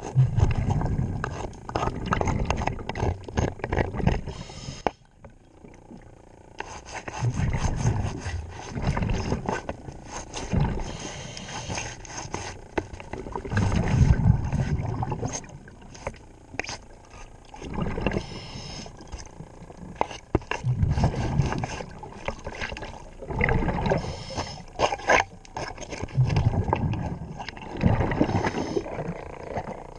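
Scuba diver breathing underwater through a regulator: exhaled bubbles rumbling out in surges every few seconds, with sharp clicks and scraping between breaths as barnacles are scraped off the propeller.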